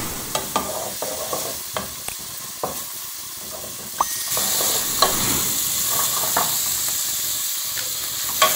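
Diced onion and garlic sizzling in hot oil in an aluminium pot, stirred with a wooden spoon that scrapes and knocks against the pot, the onion being browned. The sizzle gets louder about four seconds in, with a few sharp spoon knocks scattered throughout.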